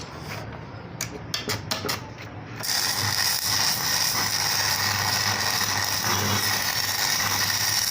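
Sharp metal knocks and clinks for the first couple of seconds. Then, about two and a half seconds in, a steady, loud machine noise with a high hiss starts and keeps running: metal being machined or worked on the tractor's axle gear.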